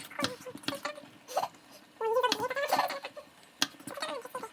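A person's high-pitched voice making short wordless sounds, with several sharp clicks.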